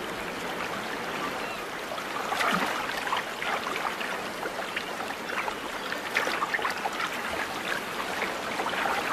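Shallow stream running over stones, a steady babble of water with many small splashes and trickles.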